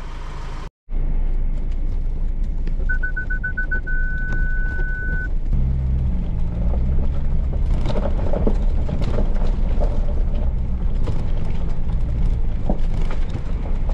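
A vehicle driving slowly over a gravel track, heard from inside the cab: the engine runs under a steady rumble with scattered stone crunches, and grows louder about five seconds in. About three seconds in, an electronic warning beeper gives a run of quick beeps that merges into a steady beep lasting about two seconds.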